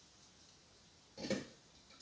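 A kitchen knife paring the brown skin off a piece of dry coconut meat: one short, loud scrape a little past a second in, among a few faint ticks.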